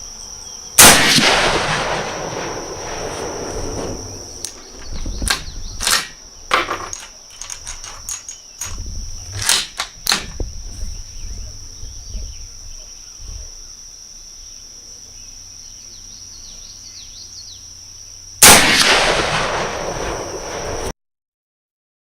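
Two shots from a Mosin-Nagant 91/30 rifle firing 7.62x54R, about 17 seconds apart, each loud crack followed by a long echo dying away over a couple of seconds. Between them comes a run of sharp metallic clicks and clacks, typical of the bolt being worked to eject the case and chamber the next round.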